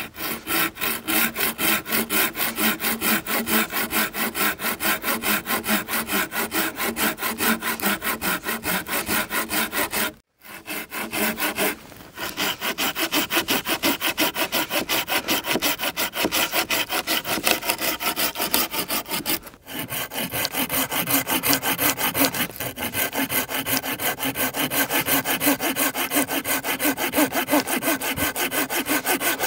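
Hand saw cutting firewood with rapid, even back-and-forth strokes. It stops briefly twice.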